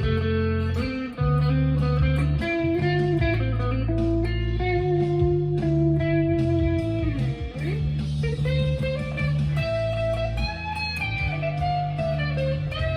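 Stagg SEL-STD electric guitar played through a Fender Mustang LT25 amp: a lead line of held, bent and sliding notes over steady low bass notes.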